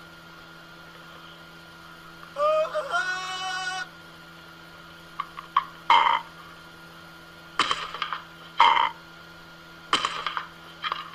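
Amazon parrot vocalizing while squabbling with a cat over a plastic food bowl. About two seconds in comes one pitched call that rises and then holds for about a second and a half. From about five seconds on there is a string of short sharp sounds.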